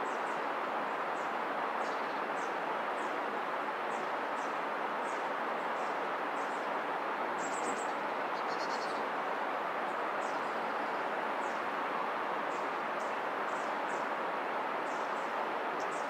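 Steady rushing of river water, with a small bird repeating short, high, thin chirps about twice a second and a brief higher trill about halfway through.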